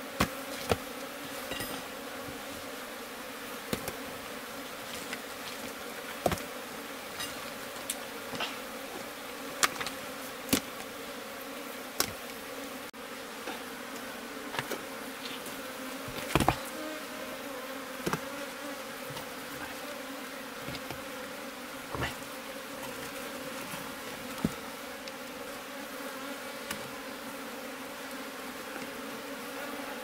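Honeybees buzzing steadily in a low, many-toned drone. Sharp clacks and knocks of rocks being pulled and shifted by hand come every second or two, the loudest about halfway through.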